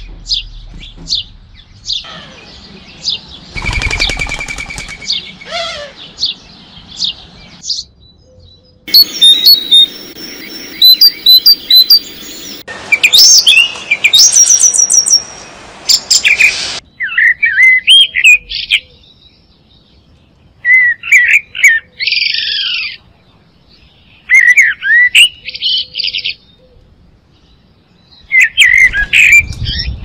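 Garden songbirds singing and chirping, several voices overlapping in quick high trills and chirps. The song is densest and loudest through the middle, where it starts and stops abruptly.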